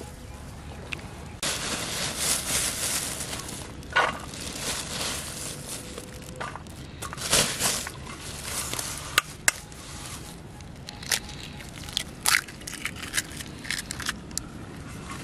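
Plastic bag crinkling and rustling as cooked rice is handled onto a steel plate, then a series of sharp clicks and cracks as eggs are broken over the plate.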